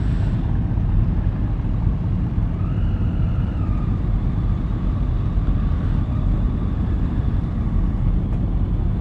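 Many motorcycle engines idling together in a steady low rumble, with a brief higher note rising and falling about three seconds in.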